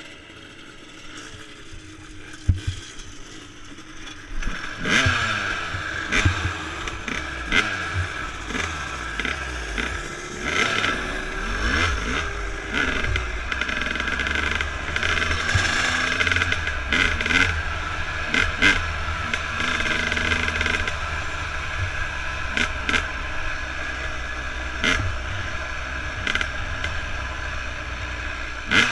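Dirt bike engine heard from the rider's own bike: low and quiet for about the first four seconds, then revving up and down repeatedly as the bike gets under way on a gravel track, with sharp knocks and clatter throughout.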